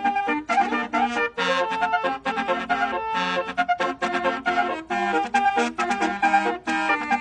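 Basuri telolet multi-tone horn playing a fast tune of brass-like notes, several tones sounding together as chords that change pitch several times a second, with short breaks between phrases.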